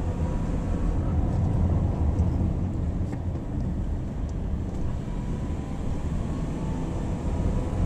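A car driving on a winding road: a steady low rumble of engine and road noise.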